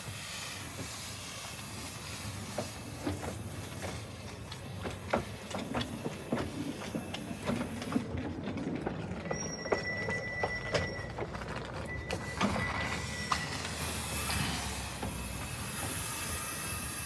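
Small 10¼-inch-gauge steam locomotive running slowly over pointwork, steam hissing from low on the engine, with many sharp clicks as the wheels pass rail joints and points. About ten seconds in come two brief high squeals from the wheels.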